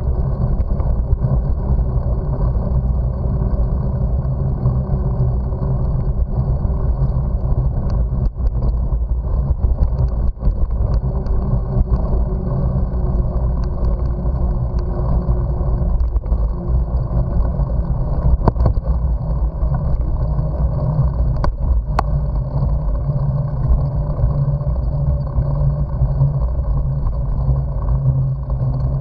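Steady low rumble of a bicycle rolling along an asphalt path, tyre noise mixed with wind on the microphone of a bike-mounted camera, with a few sharp clicks scattered through.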